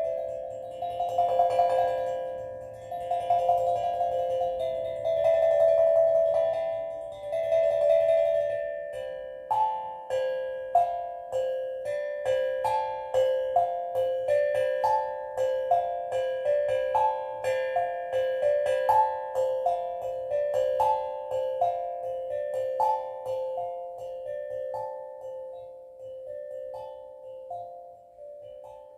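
Steel drum played slowly: swelling, sustained notes for the first several seconds, then single struck notes that ring and overlap in a gently repeating pattern, growing softer toward the end.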